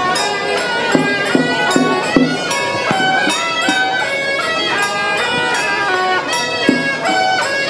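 Traditional temple ritual music: a suona (Chinese shawm) plays a nasal, stepping melody of held notes, with drum strikes beneath it.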